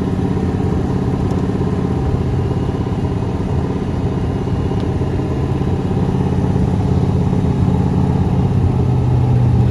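1966 Chevrolet Corvette Sting Ray's V8 idling steadily as it warms up after a cold start, growing a little louder near the end.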